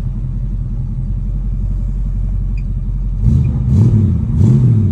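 1965 Ford Mustang's rebuilt 289 V8, with an RV cam and glass-pack mufflers, idling warm just after starting, heard from inside the cabin. About three seconds in, the throttle is blipped a few times in quick succession, the engine note rising and falling with each rev.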